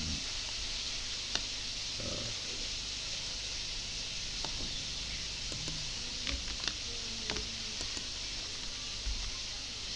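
Scattered computer mouse clicks and a few keyboard taps, most of them between about six and nine seconds in, over a steady microphone hiss and low hum.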